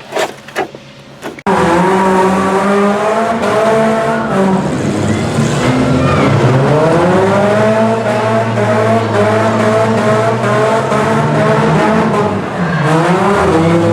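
Car engines revving up and down, several at once, as in demolition derby cars; the sound starts suddenly about a second and a half in.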